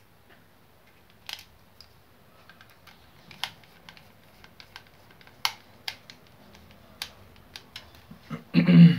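Scattered light clicks and taps of the hot air brush's plastic housing and small parts being handled and fitted back together, with a louder clunk of handling near the end.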